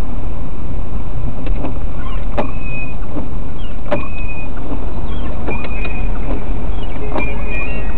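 Car driving, heard from inside the cabin: a loud, steady low rumble of engine and road noise, with scattered sharp clicks and brief high squeaks from rattling trim or the camera mount.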